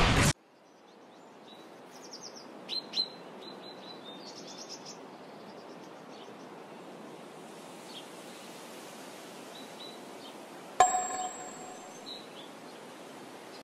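Forest ambience: a soft steady hiss with scattered high bird chirps, mostly in the first few seconds. About eleven seconds in, a single metallic ding rings out and fades over about a second.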